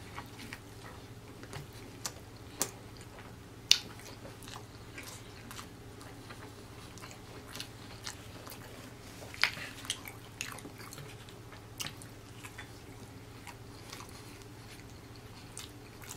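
Close-up mouth sounds of a person chewing a mouthful of crispy fried chicken sandwich: scattered crunchy crackles and wet chewing, with two louder crunches about 4 and 9.5 seconds in, over a faint steady low hum.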